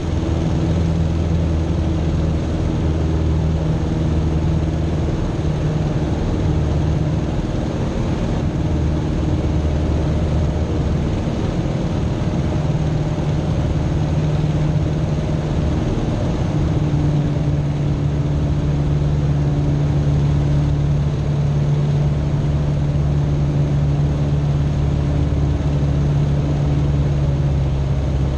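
Citabria's four-cylinder Lycoming engine and propeller running steadily in flight, a loud, even drone with small shifts in pitch.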